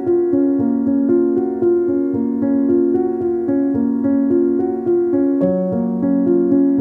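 Background instrumental music: a slow melody of notes played on a piano-like keyboard.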